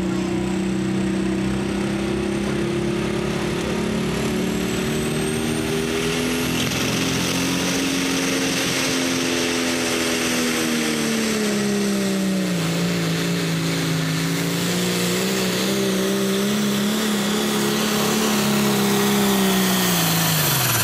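John Deere super stock pulling tractor's turbocharged diesel engine running flat out under load as it drags the weight sled down the track. A high whine climbs in pitch about five seconds in. The engine pitch dips and recovers midway, then falls away sharply at the very end as the throttle comes off.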